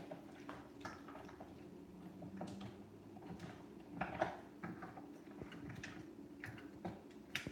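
Spatula stirring and scraping thick chocolate avocado mousse in a plastic blender jar: soft scrapes, squishes and small clicks, with a sharper knock about four seconds in and another near the end. A low steady hum runs underneath.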